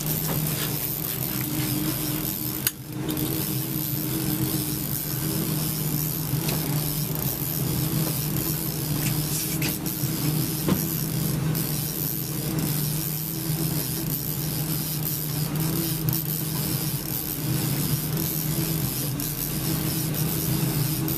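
Steady hum of a trolling boat's engine running at low speed, under a constant hiss of wind and water.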